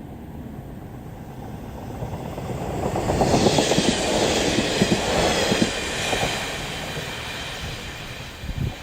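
A two-car KiHa 40 diesel railcar train passes close by. Its wheels clack rapidly over the rail joints, louder from about two seconds in and loudest from about three to six seconds, then the sound slowly fades as it moves away.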